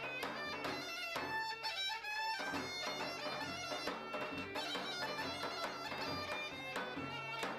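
Bulgarian gaida bagpipe playing a folk melody over its steady drone, with a large double-headed tapan drum beating along.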